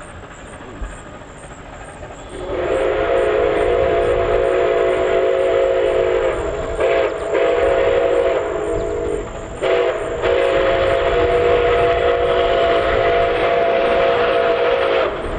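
Steam whistle of Nickel Plate Road 765, a 2-8-4 Berkshire, blowing a sequence of blasts with several notes sounding together as a chord. It begins about two seconds in with a long blast, then gives a short one, another long one and a short one, and ends with a final long blast held about five seconds.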